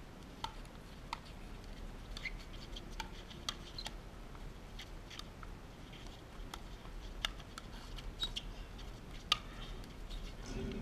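Pickleball rally: sharp pops of paddles striking the plastic ball and the ball bouncing on the hard court, about a dozen irregularly spaced hits, the loudest about nine seconds in.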